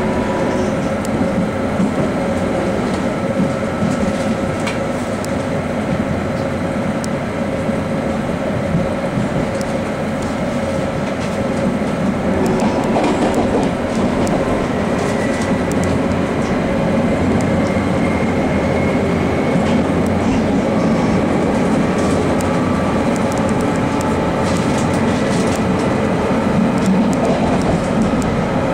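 London Underground Jubilee line 1996 Stock train running along open track, heard from inside the carriage: a steady rumble and hum of wheels and traction motors, with light clicks over rail joints.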